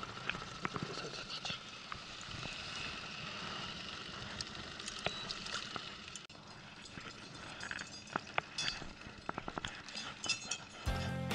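Live sound on a small boat: a steady hiss of water with scattered small clicks and taps as a caught trout and the trolling tackle are handled at the side of the inflatable's tube. Music comes back in near the end.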